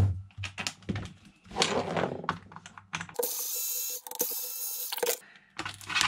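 Metal screwdriver bits clicking and rattling as one is picked and fitted, then a Bosch cordless screwdriver runs for about two seconds, with a short break partway through, backing out a screw that holds the battery pack's end plate. A few more clicks near the end.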